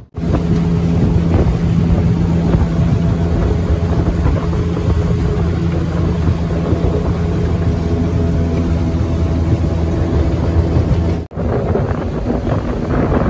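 Boat motor running at a steady speed, with wind rumbling on the microphone. It breaks off for an instant near the end and comes back with more wind and water noise.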